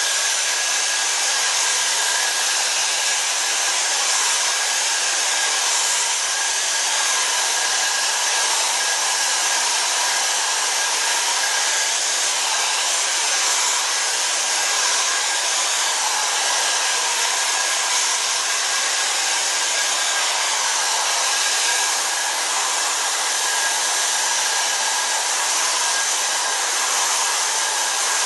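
Hair dryer running steadily, drying freshly dabbed-on leather colourant: an even rush of air with a thin steady whine in it.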